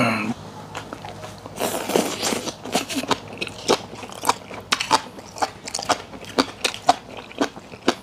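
Close-miked chewing: a man chewing a mouthful of raw rockfish sashimi with green onion, the microphone held right at his mouth. A quick run of crunchy, wet bites comes about two to three a second.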